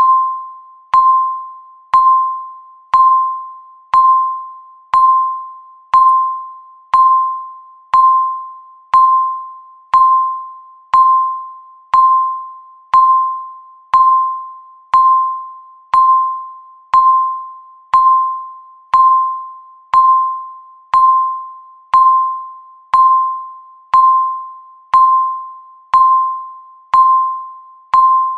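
Countdown timer's tick sound: a short electronic beep, one clear tone that starts sharply and fades fast, repeated once a second at a steady pace.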